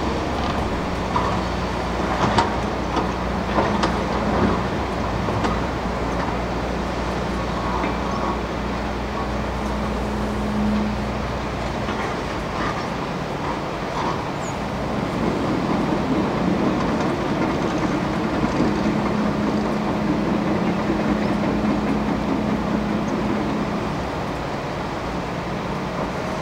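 Crawler hydraulic excavator's diesel engine running steadily as the machine swings and works its boom in a river, its note shifting about halfway through as the work changes, with rushing water and a few knocks of rock early on.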